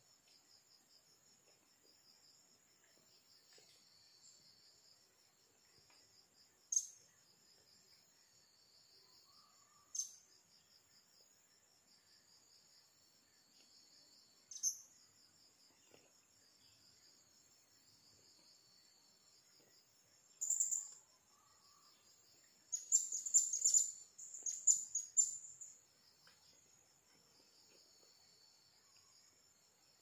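Steady high-pitched chirring of insects, with a small bird's short, sharp, high calls: single calls about 7, 10 and 15 seconds in, a brief call about 20 seconds in, then a quick run of calls between about 23 and 25 seconds.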